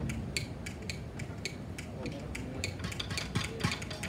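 Light, sharp percussion taps keep a steady beat of about three to four strokes a second, with more taps crowding in over the last second. Voices talk quietly underneath.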